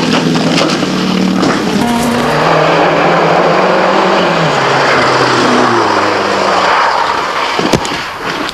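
Rally car engine revving hard, its pitch climbing and dropping repeatedly with gear changes and lifts, over heavy road and tyre noise. A single sharp knock near the end.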